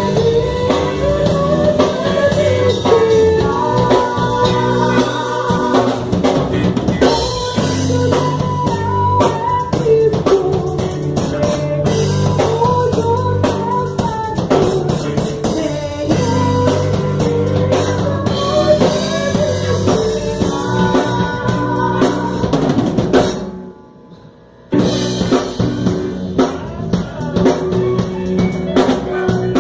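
Live band playing a gospel hymn: drum kit with bass drum and snare driving the beat under bass, guitar and keyboard, with a wavering lead melody on top. About 23 seconds in the whole band stops dead for about a second, then comes back in.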